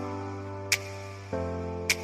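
Background music: held chords that change about once a second, with a sharp tick on the beat twice.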